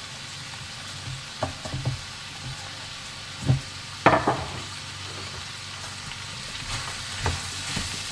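Zucchini, onions and sausage sizzling in a frying pan while being stirred, with a utensil knocking against the pan several times. The loudest knock comes about four seconds in.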